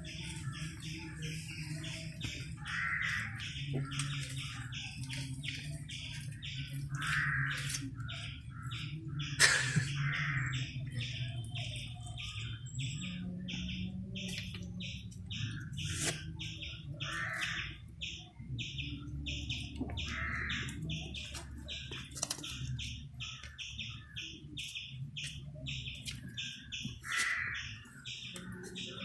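Birds chirping, with one short high chirp repeated at about three a second and a few louder calls now and then, over a low steady hum. A sharp click about nine seconds in.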